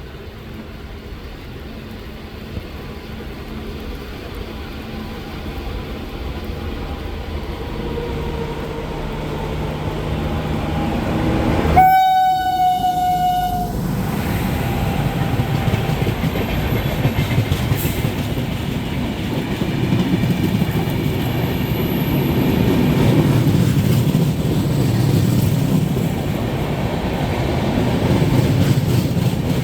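Indian Railways express train approaching and passing at speed: a rumble that grows steadily louder, one horn blast of under two seconds about twelve seconds in, then the loud steady rumble and wheel clatter of the passing coaches.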